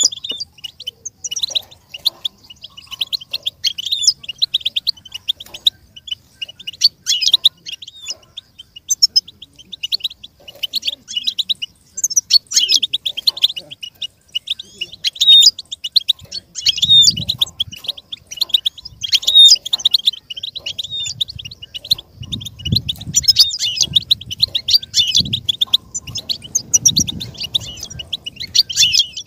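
European goldfinch singing: phrases of fast, high twittering and trills a few seconds long, with short pauses between them. Some soft low thumps come in the second half.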